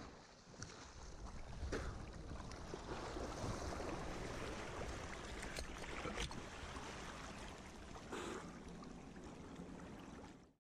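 Water sloshing and splashing with wind noise on the microphone, broken by a few sharp knocks. The sound cuts off suddenly near the end.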